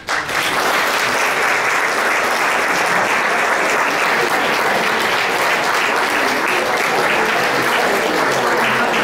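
An audience applauding, starting all at once and holding steady.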